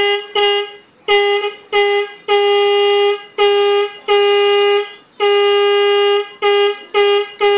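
A motorbike electric horn fitted to a bicycle and run off a rechargeable battery, sounded from a handlebar push-button in about eleven steady-pitched honks. Some are short beeps and some are held for about a second.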